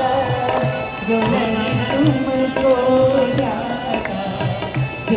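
Devotional aarti song: a sung melody over steady tabla drumming, with the drum strokes falling in an even rhythm.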